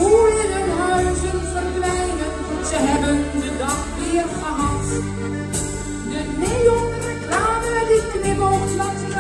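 A live sea shanty: a woman sings the lead into a microphone with a choir. Accordion, electric guitar and drums play along, the drums keeping a steady beat.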